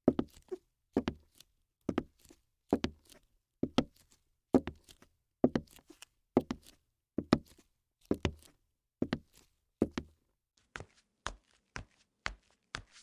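Regular heavy thuds, each a quick double hit, about one a second. About ten seconds in they give way to lighter, sharper clicks about twice a second.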